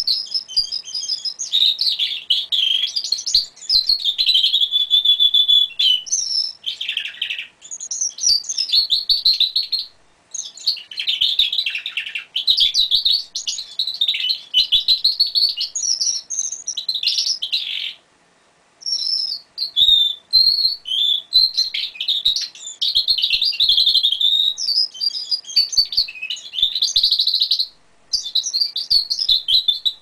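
Male canary singing: long phrases of rapid trills and rolling warbles, with a few brief pauses, cut off suddenly at the end.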